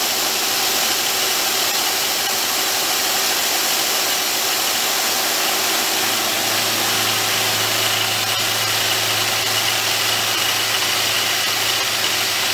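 CNC milling machine running a dovetail cutter through a pistol slide, cutting the dovetail slot for a Bomar-style rear sight, with a steady hiss over the machining noise. A low hum joins about halfway through.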